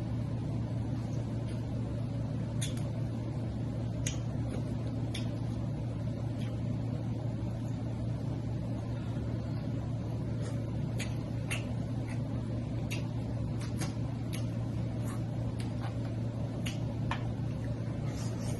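Snow crab leg shells being cracked and picked apart by hand while eating: a scatter of sharp, irregular cracks and clicks. A steady low hum sounds beneath them.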